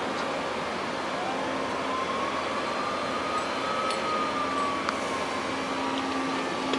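Steady running noise from a mobile crane working beside the building. A faint tone rises and then falls once through the middle, and a low steady hum comes in after about a second.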